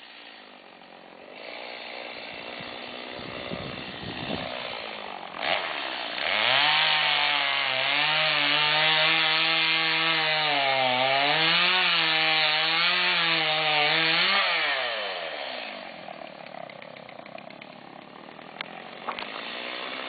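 Chainsaw idling, then revved up about six seconds in and held at high speed for about eight seconds as it cuts into a tree trunk, its pitch dipping and recovering under the load. It then drops back to idle.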